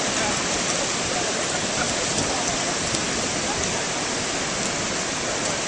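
Ocean surf breaking on a beach: a steady rushing wash of waves.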